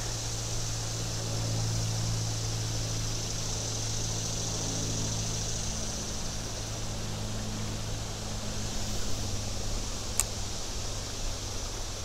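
Steady outdoor ambience beside a creek: an even hiss with a low steady hum beneath it, and one faint click about ten seconds in.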